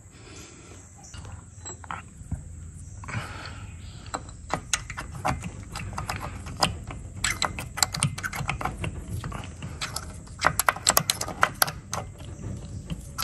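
Irregular light clicks and scrapes of a metal tool being worked by hand at the outboard's lower unit, coming faster in the second half.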